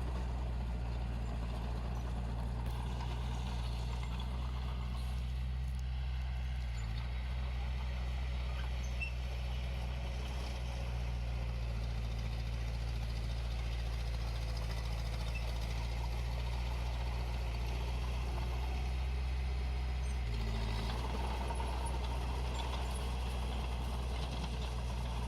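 Komatsu D21 bulldozer's diesel engine running steadily under working load, its note shifting briefly about seven seconds in and again about twenty seconds in.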